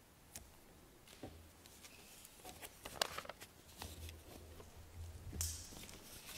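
Faint scattered footsteps and light knocks and rustles on a hard floor, with a short louder rustle about five seconds in.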